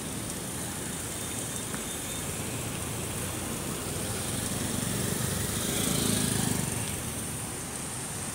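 Steady street traffic noise from slow, jammed cars, with one engine swelling louder as a vehicle passes close about five to seven seconds in.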